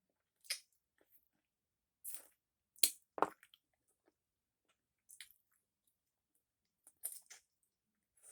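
Close-up eating sounds of frog legs in creamy sauce: wet chewing and smacking in short separate bursts with pauses between them.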